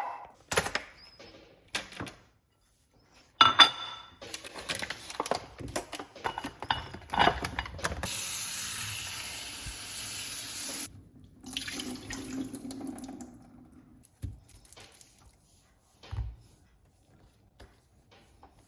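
Kitchen work at a sink: dishes and utensils clattering, then a tap running for about three seconds before it is shut off sharply, followed by a few soft knocks.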